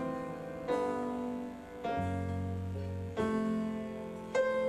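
Piano chords played between sung lines, struck about four times and left to ring, with a low bass note sounding under the second chord.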